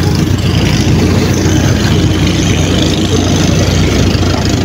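Ship's machinery running with a steady low engine hum under an even hiss.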